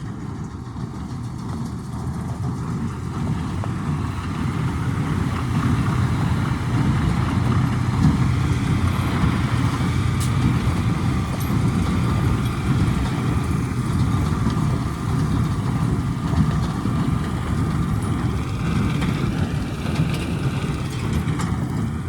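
Fendt tractor and Krone BigPack 890 large square baler running together: a steady engine and machinery drone that grows louder over the first few seconds, then holds.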